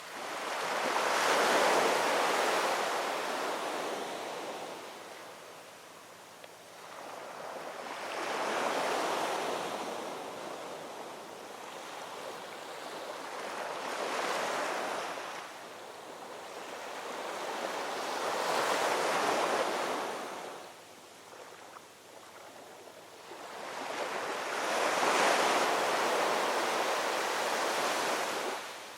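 Ocean waves rolling in and breaking on the shore, five surges of surf that each swell and fade over a few seconds.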